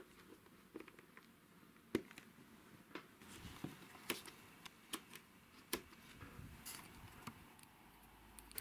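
Faint handling noise: a scatter of small clicks and taps from hands working with small parts.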